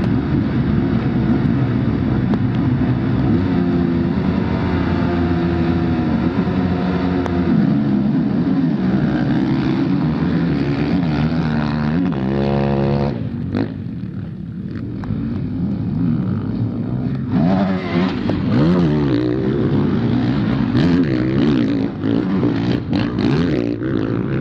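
A field of MX1 motocross bikes revving together at the start gate and racing away, many engines running at once with pitches rising as they accelerate. After a cut about thirteen seconds in, motocross engines rev up and down as bikes ride the circuit.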